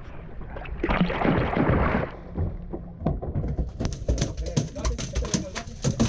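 A rushing splash about a second in, then from about three and a half seconds a rapid, irregular drumming of knocks as a freshly landed yellowfin tuna beats its tail against the fiberglass deck.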